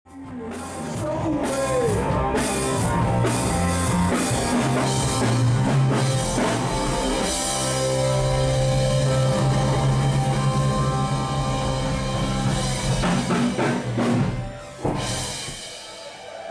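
Live rock band playing: electric guitars and drum kit with singing. The music starts abruptly and cuts off near the end.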